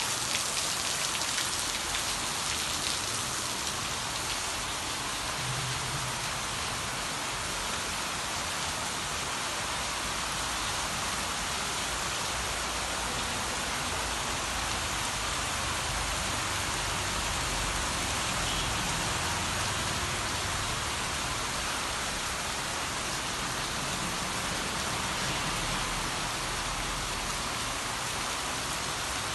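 Heavy rain pouring steadily onto paved ground and roofs: an even, unbroken hiss.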